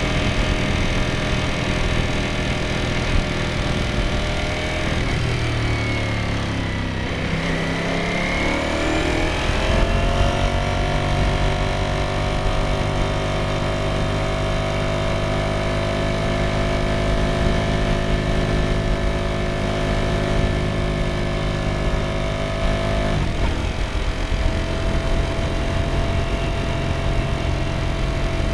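Ducati Streetfighter V4S's 1103 cc V4 engine and exhaust under way on the road, running at a steady note. About five seconds in the note falls as the bike slows, then climbs back as it accelerates and settles into a steady cruise. Near the end the engine note changes suddenly.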